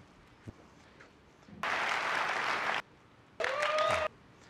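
Keynote audience applauding in two short bursts that start and stop abruptly, each about a second long; a voice whoops from the crowd during the second burst. A faint click comes about half a second in.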